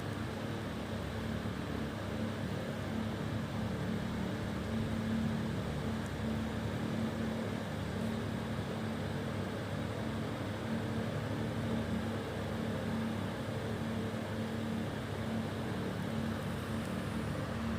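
A steady machine hum with a constant low tone over an even background noise, unchanging throughout.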